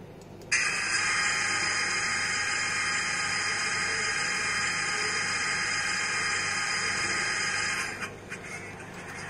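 Recorded DF5 diesel locomotive start-up sequence played through an HO-scale model's ESU LokSound 5 decoder speaker: a steady hiss starts suddenly about half a second in and cuts off about eight seconds in. It is the opening stage of the prime mover start-up, before the engine runs.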